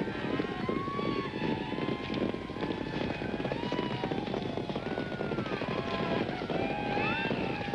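Hequ horses galloping in a race, a dense rapid drumming of many hooves, with many overlapping high, gliding cries and whoops over it.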